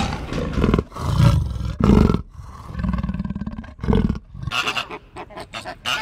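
Leopard roaring in a series of low, rasping bursts about a second apart. About four and a half seconds in, shorter, higher honking calls of flamingos take over.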